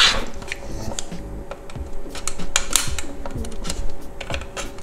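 Irregular small plastic clicks and taps, with a sharper click at the start, as fingers and a small screwdriver work the locking clips of the white connector on the back of a BMW E36 instrument cluster's plastic housing.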